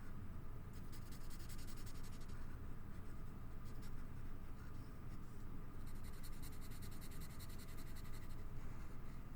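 Drawing on paper, a pen or marker stroking in quick scratchy scribbles, in two spells: one starting about a second in, another about six seconds in.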